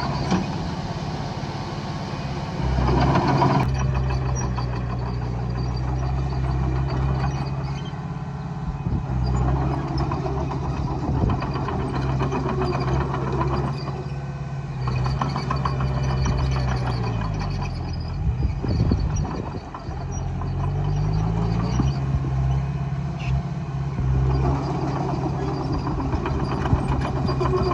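Komatsu D20A bulldozer's diesel engine running steadily while working. About two-thirds of the way in, the engine speed drops and then picks up again.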